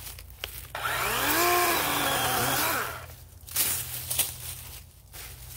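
DeWalt 20V XR battery chainsaw revved briefly: its motor whines up to speed about a second in, runs for a moment and winds down, lasting about two seconds. Brush crackles and snaps before and after.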